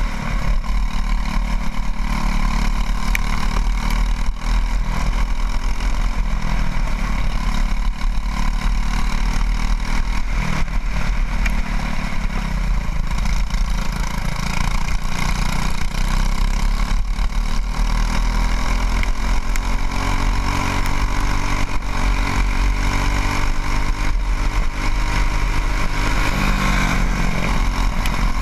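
Racing kart engine heard from the kart itself, running hard at high revs. Its pitch drops through a tight corner about halfway through and climbs again as it accelerates out, with a shorter dip near the end.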